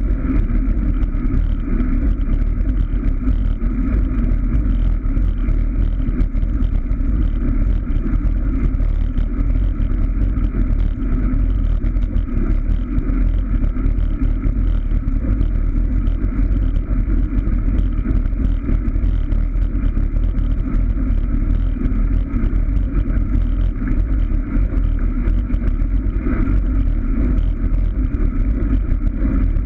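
Steady, muffled rush of wind and road noise on the microphone of a camera riding on a moving road bicycle.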